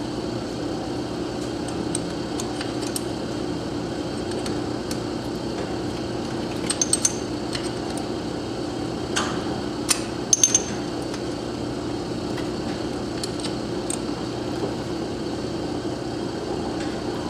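A few light metallic clicks and clinks from a wrench and nuts being worked on an exhaust stud of a Honda 200X engine: three quick ones about a third of the way in, more around the middle. A steady low hum runs underneath.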